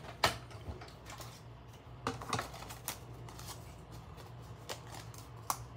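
Scattered sharp plastic clicks and taps from a hand-cranked cut and emboss machine and its clear acrylic cutting plates, as the plate sandwich comes through and is taken apart. The loudest click is right at the start, with a small cluster of clicks about two seconds in and one more near the end.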